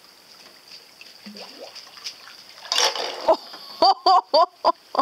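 Small toy foil kayak towed on a string, splashing and slapping on the water, with one sharp splash a little under three seconds in. A quick run of short voiced sounds follows near the end.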